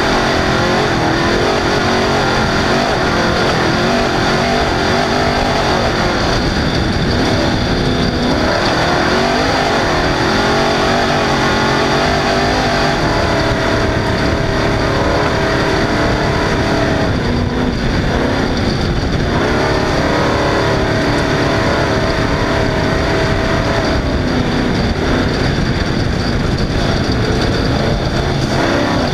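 Off-road race car's engine running hard under load, its note rising and falling with throttle and gear changes, with a short dip about a quarter of the way in and a longer one just past the middle. A steady low rumble lies beneath it.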